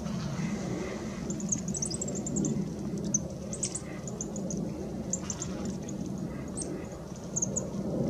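Small birds giving high, thin chirps in quick short runs, several times, over a low steady rumble.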